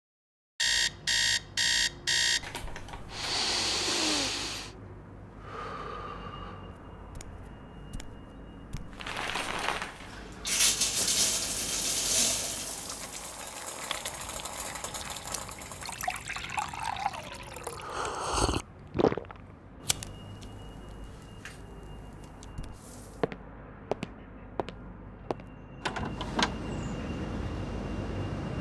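An alarm clock beeps four times, then household sounds follow: water runs and splashes several times, with scattered clicks and knocks.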